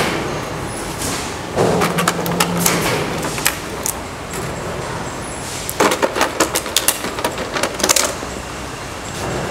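Two-wheeled self-balancing scooter (hoverboard) knocking and clattering on concrete as it is tipped, rolled and tumbled in a rough-handling test. There are two spells of rapid knocks, one starting about one and a half seconds in and a denser one about six seconds in.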